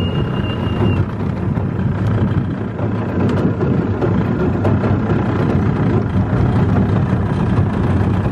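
Outboard motor of a small boat running steadily at speed, with water rushing past the hull. A thin, high, steady whistle stops about a second in.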